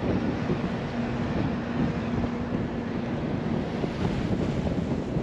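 Wind buffeting the microphone over the steady noise of a moving bus, with a low steady hum that fades out about three and a half seconds in.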